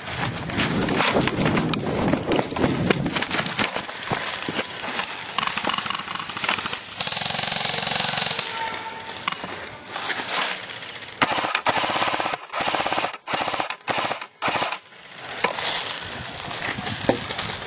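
Airsoft guns firing full-auto, a fast mechanical rattle, breaking into several short bursts with brief gaps about two-thirds of the way in.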